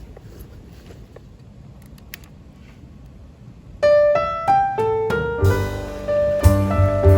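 A low, faint rumble at first, then background piano music starts about halfway through, with a few single notes followed by fuller chords over a bass line.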